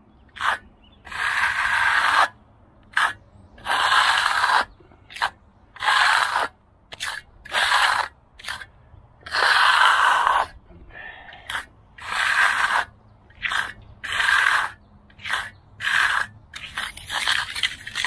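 A metal hand float scraping over setting concrete in repeated rough back-and-forth strokes, some short and some a second or more long. It is working up paste to fill a spot where the power trowel tore the hardening surface.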